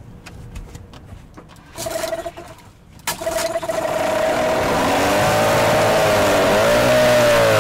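Small outboard motor starting: a brief burst about two seconds in, then it runs from about three seconds in, its revs rising and falling.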